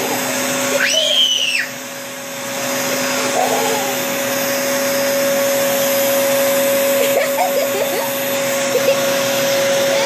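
Vacuum cleaner running steadily, its hose held to a child's long hair and sucking it up: a constant motor hum over a steady rush of air. The level dips briefly a little under two seconds in, then recovers.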